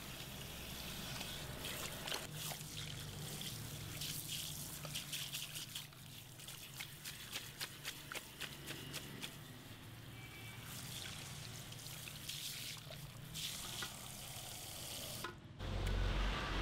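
Water spraying from a handheld shower head onto hair over a salon wash basin, a steady hiss with many small splashes and drips. About a second before the end it cuts off abruptly and a louder low hum takes over.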